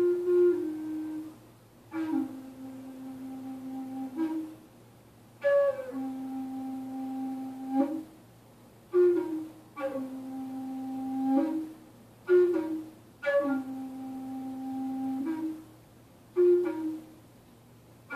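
Native American-style wooden flute played in slow phrases: each opens with a few short higher notes, then steps down and holds one long low note, with a short breath pause before the next phrase, roughly every three and a half seconds.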